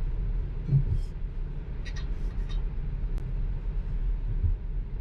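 Low, steady road and tyre rumble inside the cabin of a Tesla electric car as it drives, with a few faint clicks about one to two and a half seconds in.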